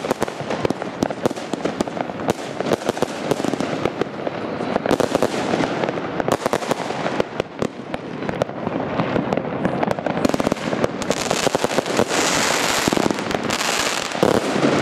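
Category II consumer fireworks going off in quick succession: a dense run of bangs and crackles from gold aerial bursts, thickening into a steady hiss and crackle near the end.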